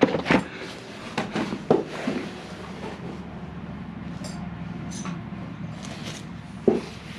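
A few sharp knocks and clatters from handling small parts and tools, bunched in the first two seconds, over a steady low hum.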